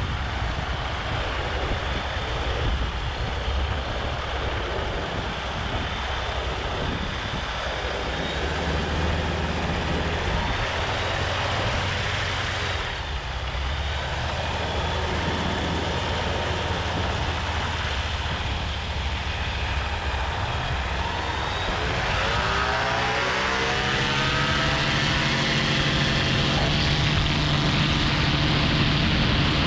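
Revo ultralight trike's engine and pusher propeller running steadily at low power while taxiing, with wind hiss on the microphone. About two-thirds of the way through the throttle opens and the pitch rises as the engine powers up for the take-off run.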